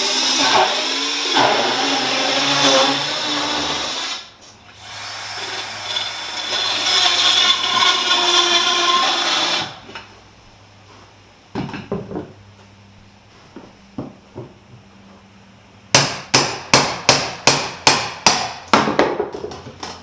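Bosch GKS 10.8 V-LI cordless mini circular saw cutting through a floorboard, with a brief dip about four seconds in, then stopping near ten seconds. After a quiet spell and a couple of knocks, a rapid run of sharp knocks, about two to three a second, fills the last four seconds.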